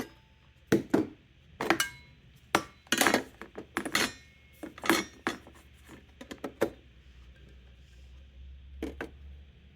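Mugs knocking and clinking against the plastic body and drip tray of a Hamilton Beach single-serve coffee maker as they are moved and set under the spout. About a dozen sharp knocks come over the first six seconds or so, and after them only a faint low hum remains.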